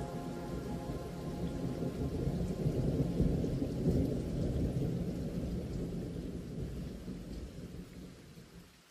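Rain with rolling thunder, a deep rumble that swells about three to four seconds in and then fades away, left alone as the soundtrack's music dies out in the first second.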